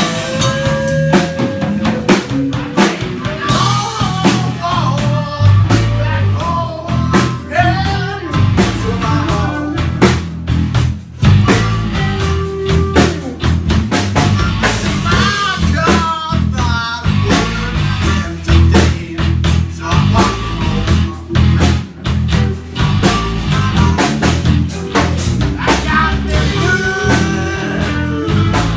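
Live band jamming a blues-rock number, with a drum kit keeping a steady beat under guitar.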